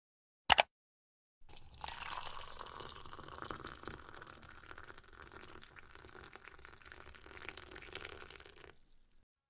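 A quick double click, then about seven seconds of water pouring with small drips and ticks, loudest at first and slowly fading before it stops.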